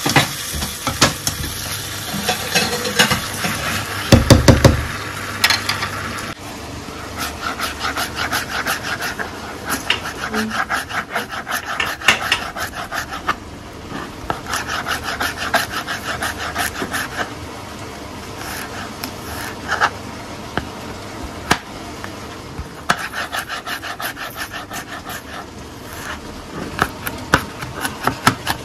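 Chicken and vegetables sizzling in a paella pan as a spatula stirs them, with one loud low thump, then a chef's knife rapidly chopping garlic on a cutting board, a dense run of quick tapping strokes.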